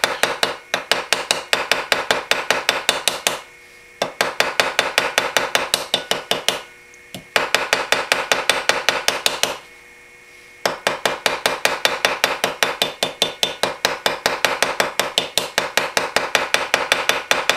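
Small hammer tapping lightly and rapidly on a straight razor's pivot pin, about five taps a second in four runs with short pauses between them: peening the pin over its washer to set it.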